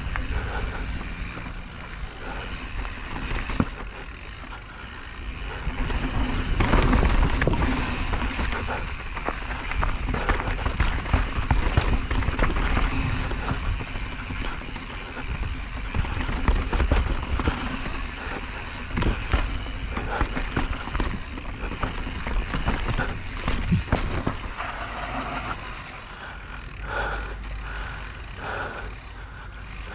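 Mountain bike descending rocky dirt singletrack: knobby tyres roll and crunch over dirt and rock, the bike rattles and knocks over bumps, and wind buffets the microphone with a constant low rumble.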